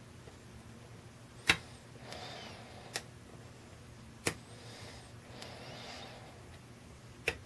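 Lock pick working inside a Schlage Everest LFIC core: four short, sharp metallic clicks, the first one the loudest, with faint scraping of the pick in the keyway between them.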